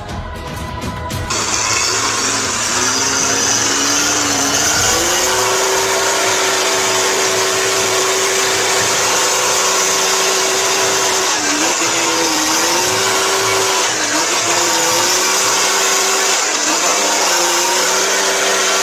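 Short burst of music, then a cargo truck's engine running at high revs as its rear wheels spin in mud, a steady pitch that sags briefly and recovers every few seconds under loud wheel and mud noise.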